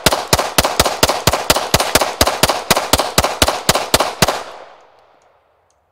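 A 9mm semi-automatic pistol fired in rapid fire, about four evenly spaced shots a second. The string stops about four seconds in, and the echo dies away.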